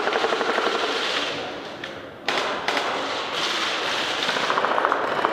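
Airsoft guns firing rapid full-auto bursts, a fast clatter of shots echoing in a large hall; a fresh burst starts suddenly about two seconds in and another rapid run comes near the end.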